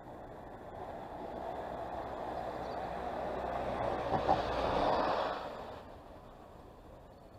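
A vehicle passing along the street: its noise builds for a few seconds, peaks with a couple of sharp clacks about four seconds in, then fades quickly.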